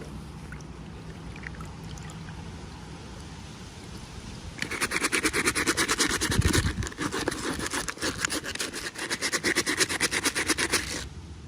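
A rapid, rasping scrape made of many fast clicks, starting about four and a half seconds in and cutting off abruptly near the end.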